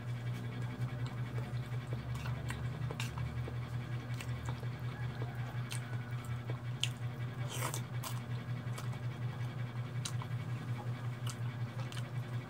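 Close-up eating sounds: a spoon clicking against a bowl, with chewing and noodles being slurped, over a steady low hum.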